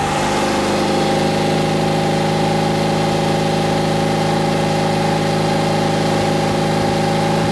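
1964 Porsche 356C's air-cooled flat-four engine held at about 3,000 rpm, a steady, even note. It is being held there so the ignition timing can be read at full distributor advance.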